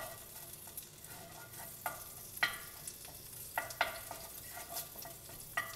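Chopped green onion frying gently in melted anchovy butter in an enamelled cast-iron pot, with a steady soft sizzle. A spoon stirs it and knocks sharply against the pot several times.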